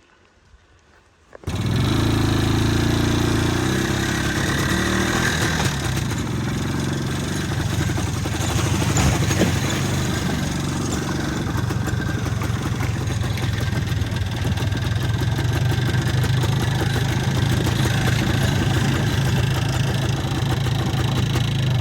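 Vehicle engine running steadily while driving, coming in suddenly about a second and a half in.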